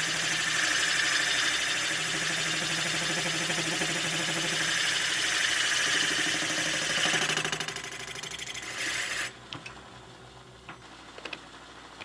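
Milling machine spindle running a boring head through a light cut in the port of a Saab intake manifold, with a steady hiss of coolant spray over a low hum. The hum dies away about eight seconds in and the hiss cuts off suddenly a second later, leaving a few light clicks.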